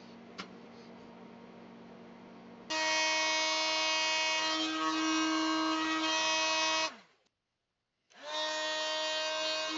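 Mastercraft handheld electric heat gun running with a steady whine while it shrinks heat-shrink tubing over soldered wire joints. It switches on abruptly about three seconds in, winds down to a stop near seven seconds, and spins up again about a second later. Before it starts there is only a low hum and a single click.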